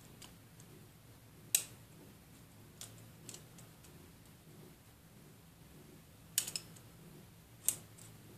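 Short, sharp clicks and snaps of the plastic housing frame of a Chinese iPhone 5S clone being pried off the phone with metal tweezers, about five of them, unevenly spaced. The loudest comes about one and a half seconds in and a quick cluster comes a little after six seconds, over a faint low hum.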